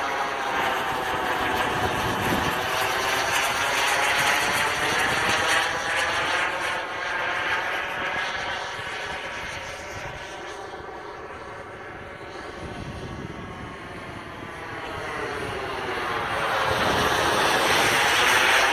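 Viggen delta-wing jet flying past, a steady jet rush with a sweeping, phasing whoosh. It fades as the jet moves away in the middle and grows louder again near the end as it comes back overhead.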